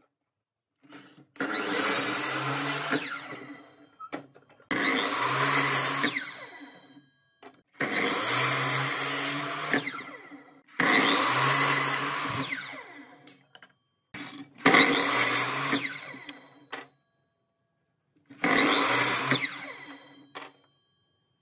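Electric miter saw making six cuts through a wooden board, about one every three seconds: each time the motor starts suddenly with a whine, the blade goes through the wood, and the whine falls away as the blade spins down.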